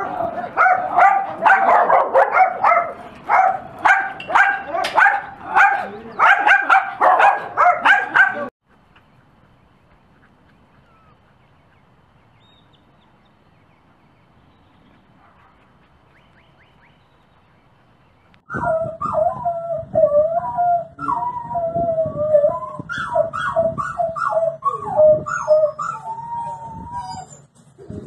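Dogs barking and yipping in quick succession for about eight seconds. After about ten quiet seconds, a wolfdog puppy 'talks' in wavering, rising and falling howl-like yowls for about nine seconds.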